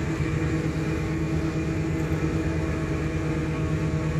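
Hot air gun running with a steady, even hum while heat-shrink insulation is shrunk onto high-voltage cable ends.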